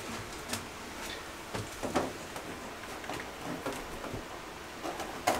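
Faint, scattered light taps and rubs of a plastic tub surround panel being handled and pressed against the wall, a few short clicks spread through an otherwise quiet room.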